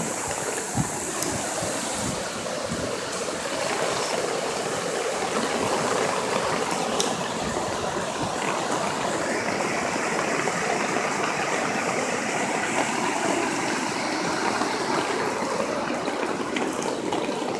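Floodwater rushing steadily in a continuous, even roar of moving water.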